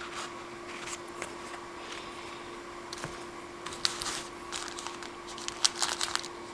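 Trading cards being handled, with soft clicks and rustles as cards are slid and shuffled, more of them in the second half. A steady low hum runs beneath.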